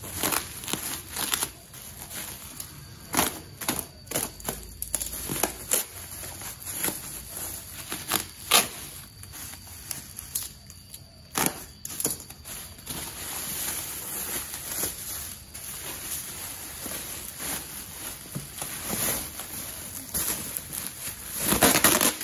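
Plastic wrapping crinkling and crackling as a parcel is unwrapped by hand, in irregular sharp snaps and rustles, with a louder burst near the end as a black plastic bag is pulled off the box.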